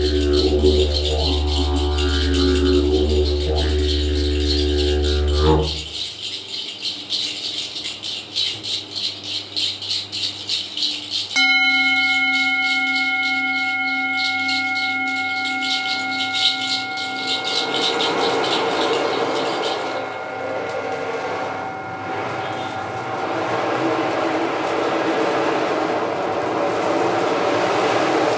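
Didgeridoo drone with shifting overtones over a fast rattle, stopping about six seconds in. A pulsing rattle follows, then a struck metal instrument rings out with several steady tones, and a rushing swell of noise builds under it near the end.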